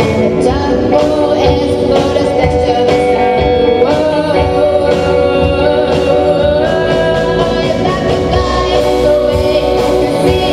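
A rock band playing live, a singer's voice carried over guitar and a steady beat.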